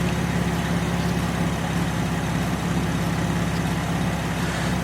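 Chevrolet Traverse 3.6L V6 idling steadily. The mechanic points out a slight misfire knock and shaking at idle, tied to a P0300 random misfire code on cylinders 1, 3 and 5.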